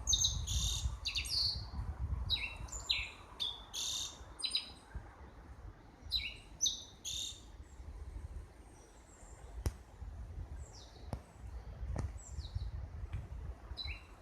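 Small songbirds chirping: bursts of short, high notes come in quick phrases every second or two, then thin out to a few downslurred notes in the second half. A steady low rumble runs underneath.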